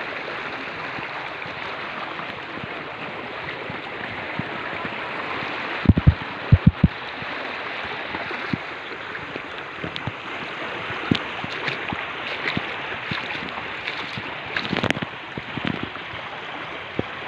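A fast-flowing river rushing steadily, with a few dull thumps about six seconds in.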